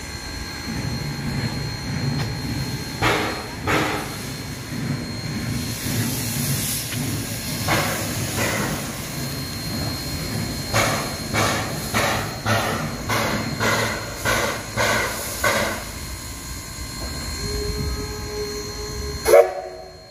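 Turntable turning with the Edison #1 steam locomotive on it: a steady low rumble and steam hissing, with a run of irregular clanks and knocks. A held tone starts near the end, followed by one brief loud sound.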